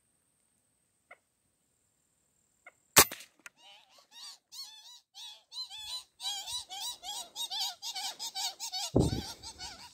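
A single sharp rifle shot about three seconds in, followed by a fast run of high, squeaky animal calls that rise and fall in pitch, several a second, growing denser. A low thump comes just after nine seconds.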